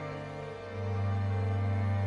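Slow, sad-sounding instrumental background music of long held notes; a new low note comes in just under a second in.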